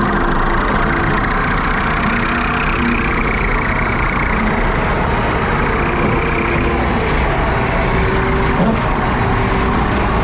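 JCB Teleskid skid steer running steadily at working speed, driving a 7-foot Jenkins bush hog (rotary cutter) through the grass.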